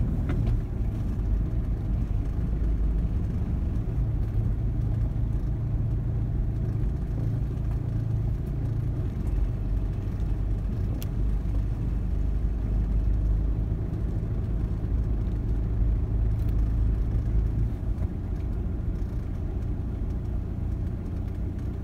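Steady low rumble of a road vehicle travelling along a street, with no clear changes.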